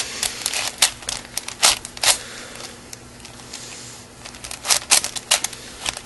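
4x4 Rubik's cube being turned by hand through a solving algorithm: quick, irregular plastic clicks and clacks of the layers turning, in two busy runs with a sparser stretch in the middle.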